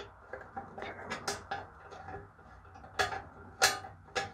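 Screwdriver and small slotted aiming screws clinking against the metal headlight housing and reflector as the screws are started and tightened: a handful of sharp metallic clicks, the loudest about three and a half seconds in.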